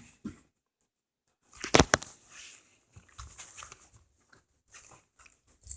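A pet dog moving about as it is let outside, with a sharp clatter about two seconds in and rustling and shuffling after.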